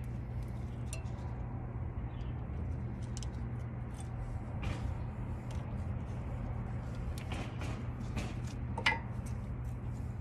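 Small metallic clicks and clinks as new brake pads and their clips are worked into a front brake caliper bracket, with a sharper click near the end, over a steady low background hum.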